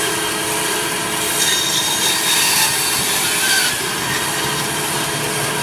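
Electric meat band saw running with a steady hum while its blade cuts through bone-in beef; the cut grows louder and hissier from about a second and a half in until nearly four seconds in.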